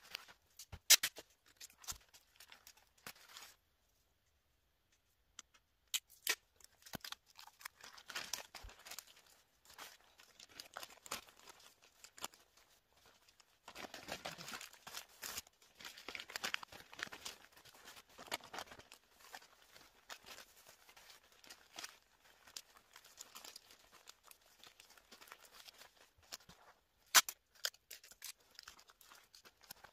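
Gift-wrapping paper crinkling and rustling as it is folded around a present, in stretches, with a few sharp clicks; the loudest clicks come about a second in and near the end.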